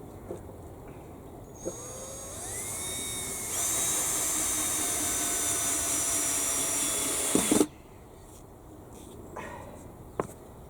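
Power drill running: it starts about two seconds in, speeds up in two steps, runs steadily for about four seconds, then stops abruptly after a couple of sharp clicks.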